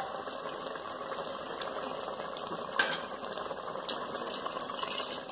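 Ladle stirring mutton curry in a metal pot over a steady hiss of cooking, with a sharp knock of the ladle against the pot about three seconds in.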